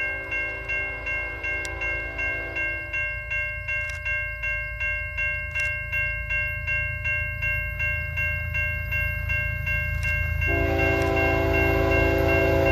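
Grade-crossing bell ringing about two and a half strokes a second as a CN freight approaches. The lead diesel locomotive sounds two horn blasts for the crossing, one in the first three seconds and another from about ten and a half seconds in. A low rumble from the oncoming locomotives builds through the second half.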